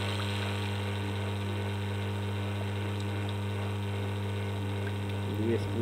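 Steady low electrical hum with even overtones from the reverse-osmosis unit running on the test bench.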